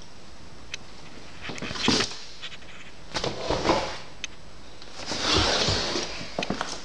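Handling noise from a handheld camera being carried and moved about: scattered clicks and knocks with rustling, scraping swells at about two seconds, three and a half seconds and five to six seconds in.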